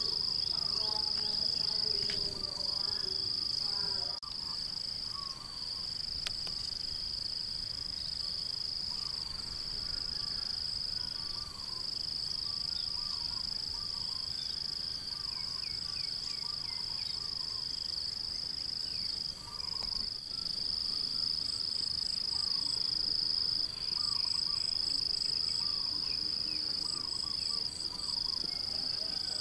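Insects trilling: one steady, high-pitched drone that never stops, with a second insect's pulsing call above it in the second half. Scattered bird chirps sound faintly underneath.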